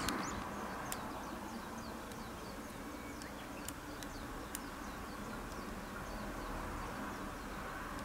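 Outdoor ambience: a steady low background hiss with many faint, short, high chirps of small birds in the distance, and a few sharp clicks.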